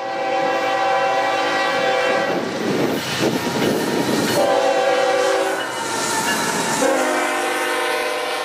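Diesel locomotive air horn sounding three long blasts, with the rumble and clatter of a passing train's wheels on the rails between them.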